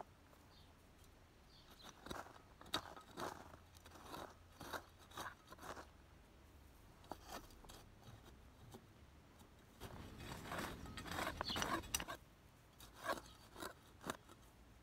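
Small metal hand hoe scraping and chopping into dry, stony soil to loosen garlic bulbs: a string of short crunching scrapes, coming thick and fast about ten to twelve seconds in.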